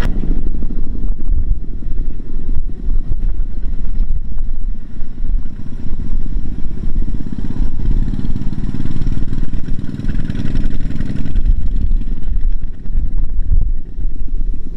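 Single-cylinder diesel engine of a two-wheel walking tractor running steadily under load while it pulls a trailer loaded with rice sacks.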